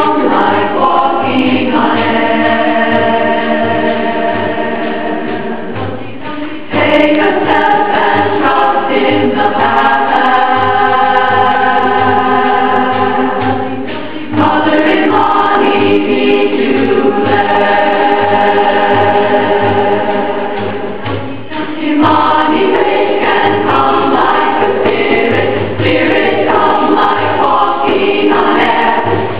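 Women's chorus singing in harmony, in long held phrases, each new phrase entering a little louder roughly every seven to eight seconds.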